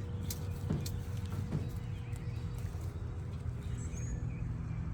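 Steady low rumble of distant road traffic, with a few faint ticks in the first second or so and a couple of faint high chirps about four seconds in.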